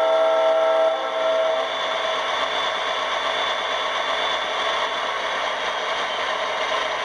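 MTH Premier BNSF Dash 8 model diesel locomotive playing an older Proto-Sound 2.0 Dash 8 narrow-nose sound file through its speaker: a horn blast cuts off about a second in, followed by the steady running sound of the diesel engine with a rattling clatter.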